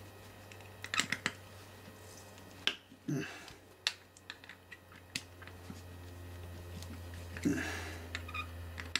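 Small screws being undone with a screwdriver from the plate of a sextant's hermetic housing: scattered light metal clicks and ticks, a few close together about a second in and more spaced out after. A low steady hum runs underneath.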